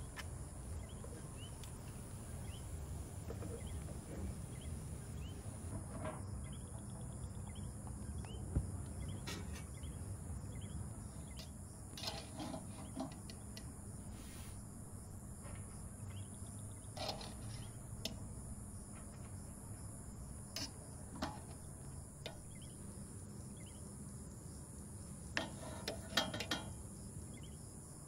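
Outdoor ambience: a steady high insect drone over a low rumble, with a few faint bird chirps near the start and scattered light clicks and knocks every few seconds.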